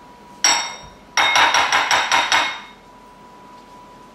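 Metal spoon knocked against the rim of a ceramic bowl: one sharp clink, then a quick run of about seven ringing taps, knocking sour cream off the spoon into the dressing.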